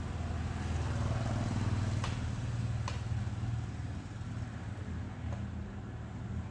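Low engine hum that swells over the first few seconds and then eases off, with a few sharp clicks.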